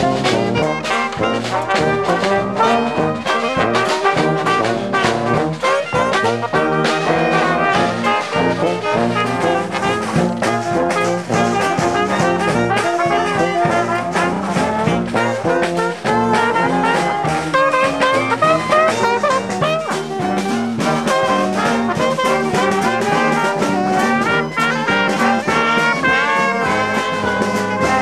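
Brass band playing a traditional march: trumpets, trombones, saxophone and sousaphone in full ensemble over a steady drum beat.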